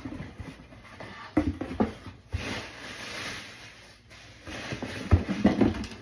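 A cardboard shipping box being handled and opened: a few sharp knocks and rustles, with a rasping, tearing noise lasting about a second a little after two seconds in and more knocks near the end.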